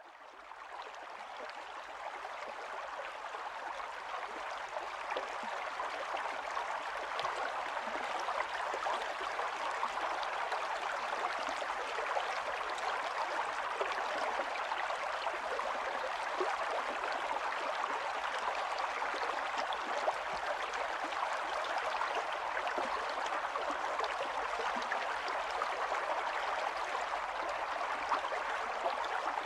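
Steady rain, a dense hiss with fine ticks through it, fading in over the first couple of seconds.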